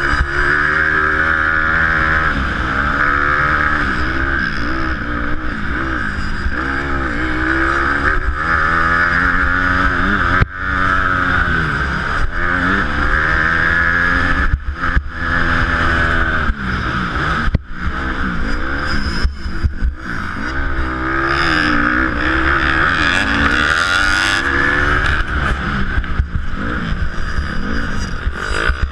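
Honda motocross bike's engine revving hard, its pitch climbing and dropping again and again as the rider works the throttle and shifts gears, with a few sudden brief throttle chops. Heard from a helmet-mounted camera, with wind noise on the microphone.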